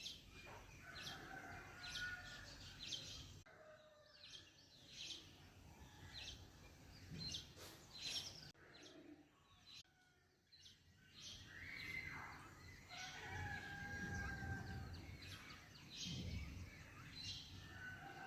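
Faint bird calls outdoors: many short chirps, with a few longer drawn-out calls.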